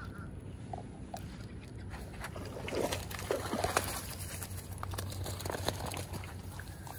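Wind rumbling on a phone microphone while a hooked bass is fought at the pond's edge. From about two seconds in come scattered splashes, clicks and rustles of the fish and the line in the water and grass.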